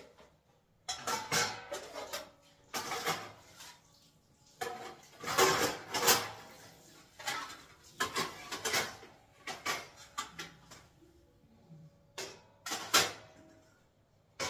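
Stainless steel utensils clattering as they are set one by one into a steel dish rack: a string of irregular metal clinks and clanks, some with a short ring.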